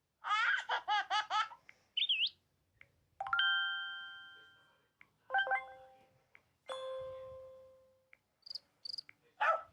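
LG K22 phone's built-in notification sounds played one after another. First comes a quick run of chirping, bird-like warbles, then a short rising swoop, then three chimes whose tones ring out and fade over a second or two, and near the end a pair of short high blips.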